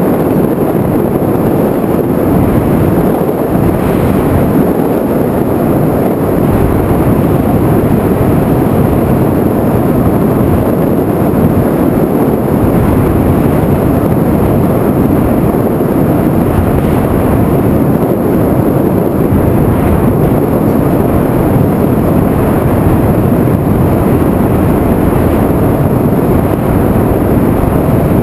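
Loud, steady rushing of airflow and wind buffeting on the onboard microphone of an FPV aircraft in flight, with no clear motor tone.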